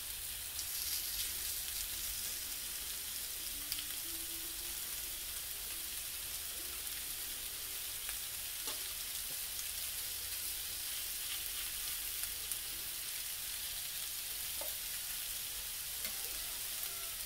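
Thin slices of marinated lamb sizzling on an oiled hot grill, a steady hiss with scattered small crackles and pops.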